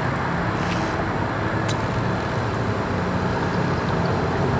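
Steady road-traffic noise with a low engine hum.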